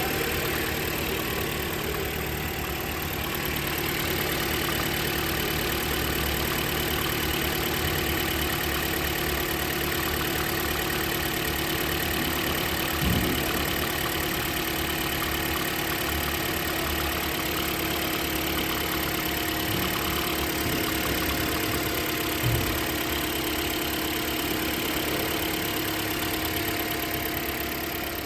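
Toyota four-cylinder engine idling steadily, with two short knocks about nine seconds apart.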